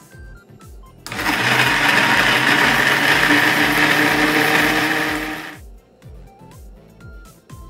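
Electric blender running with its jar full of cucumber juice ingredients, starting abruptly about a second in and winding down after about four and a half seconds. Background music with a steady beat plays throughout.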